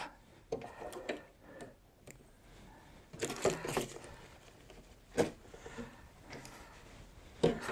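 Small scissors snipping loose thread ends off a stitched nylon pouch, with handling of the fabric: a few scattered short snips and rustles, then two sharp single clicks.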